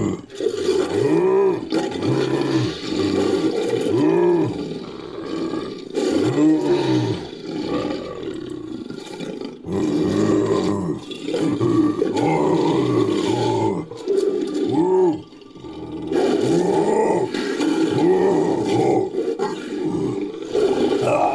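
Lion-like roars and growls from a designed creature sound effect, made from big-cat recordings and a human voice: a string of calls, each rising then falling in pitch, about one every second or two.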